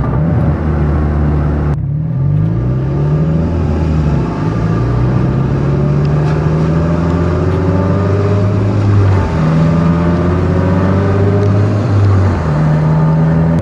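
Ford Mustang engine through its exhaust with the cutout valve closed, giving a deep rumble while driving. Its pitch falls early on as the car decelerates, climbs steadily through the middle, and jumps a couple of times near the end.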